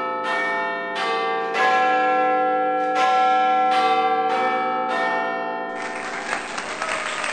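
Intro sting of ringing bell tones, a new note struck about every second and each one ringing on under the next. About six seconds in, the bells give way to a dense crackling noise like a crowd applauding.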